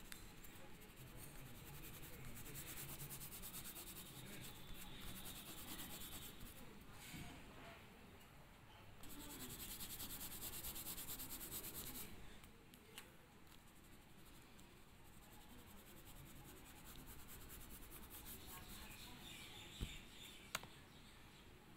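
Pastel crayon scratching on paper in rapid back-and-forth colouring strokes, faint, louder in two stretches. Two light knocks come near the end.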